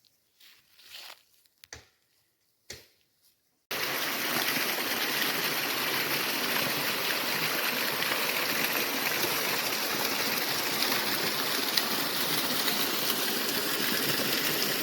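Steady rushing water of a stream, cutting in suddenly about four seconds in after a few faint, short sounds.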